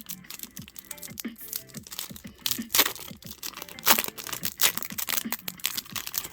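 Foil booster pack being torn and crinkled open by hand, a run of sharp ripping and crackling sounds with the loudest rips a little under three and about four seconds in; the packs are tough to open.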